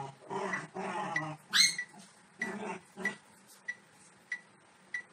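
Puppy whining and yelping, with a sharp rising yelp about one and a half seconds in, then falling quiet in the second half. A short tick repeats evenly about every two-thirds of a second.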